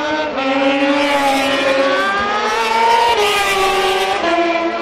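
1000 cc superbike motorcycles racing past at high revs. The engine note climbs, then drops back several times as the riders shift up under acceleration.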